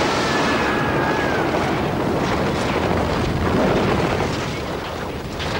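Film sound effects of a large explosion and the fire burning after it: a continuous loud blast noise with a few sharper bangs, easing off slightly near the end.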